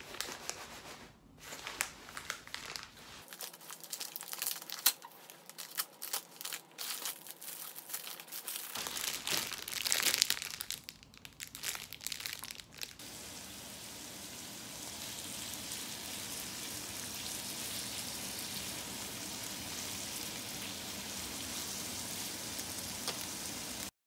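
Plastic packaging crinkling and rustling as a padded mailer is opened and a bag of string lights is handled, in irregular sharp crackles. After about thirteen seconds the crackling stops and a steady hiss takes over.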